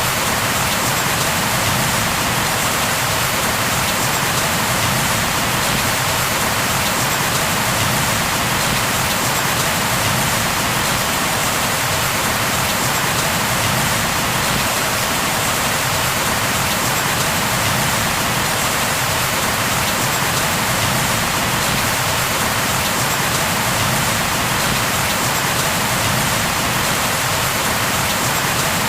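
Steady heavy rain falling on a surface, a continuous even hiss with no breaks.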